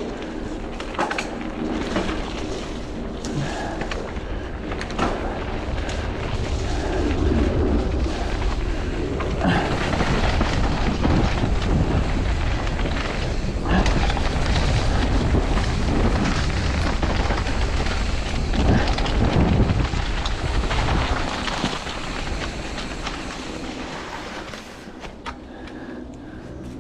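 Mountain bike riding fast down a wet dirt trail: wind rumbling on the microphone, tyres on loose ground, and the bike rattling and knocking over bumps. It eases off in the last few seconds as the bike slows to a stop.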